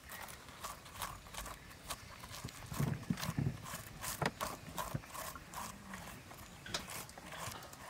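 Fingers scooping the wet seeds out of a halved ripe papaya: irregular soft clicks and taps, several a second, with a few duller knocks about three seconds in.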